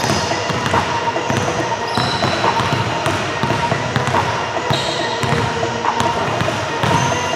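Basketballs bouncing on a hardwood gym floor, with a steady murmur of crowd chatter in the gym and a few short high squeaks.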